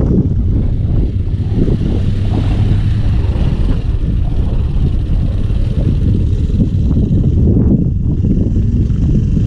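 Steady low engine rumble mixed with wind buffeting the microphone.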